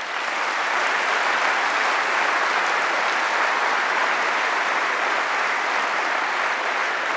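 A large audience applauding, building quickly at the start and then holding steady.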